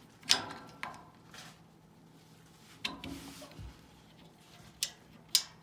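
A handful of short, sharp plastic clicks and light knocks at uneven intervals: a knob being pushed onto and seated on the shaft of a wood stove blower's fan speed control.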